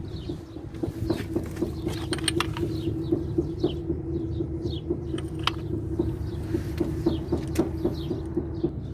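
Hand ratchet wrench clicking in short, scattered runs as the bolts of a rear crankshaft seal installer are drawn up a thread at a time, over a steady low mechanical hum with a regular pulse. Faint bird chirps come and go.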